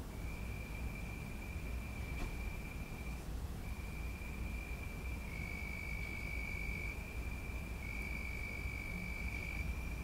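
Crickets trilling: long, steady high-pitched trills broken by short pauses, with a second, louder trill joining about halfway through and coming and going. A low background hum runs underneath.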